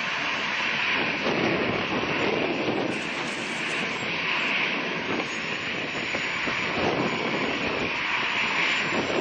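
Jet airliner engines running, a steady rushing noise with gentle swells in loudness.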